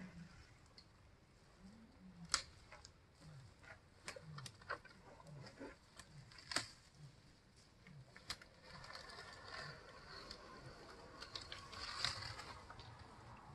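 African bush elephant browsing in a tree: twigs and branches snapping in scattered sharp cracks, the loudest about two and a half and six and a half seconds in, then leaves and branches rustling for a few seconds near the end.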